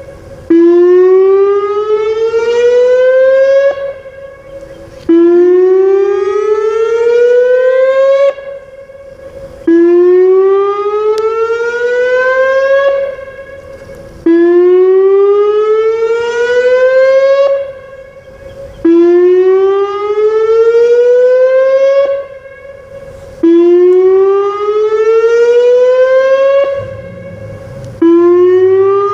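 Whelen WPS 2909 electronic outdoor warning siren sounding its weekly test. It is loud: a tone that climbs steadily over about three and a half seconds, falls back and starts low again, repeating about every four and a half seconds, with the loudness dropping away between climbs.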